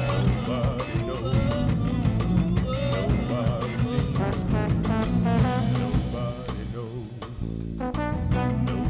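Live improvised music: wordless singing over an instrumental backing with a steady low bass line and quick, regular percussion ticks.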